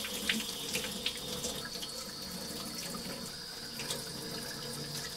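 Tap water running into a stainless steel sink and splashing over a potato being rinsed and rubbed by hand, with small scattered knocks and splashes.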